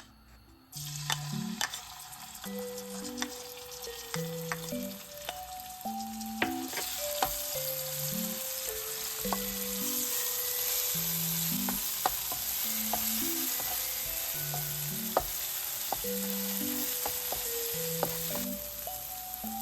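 Food sizzling in hot oil in a frying pan, with scattered sharp clicks. The sizzle starts under a second in, grows louder about a third of the way through and eases a little near the end.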